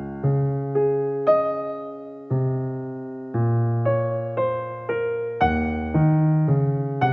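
Slow, gentle keyboard music: piano-like notes and chords struck about once or twice a second, each ringing and fading before the next.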